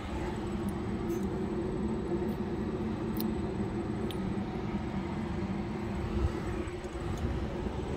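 Steady mechanical drone with a constant low hum.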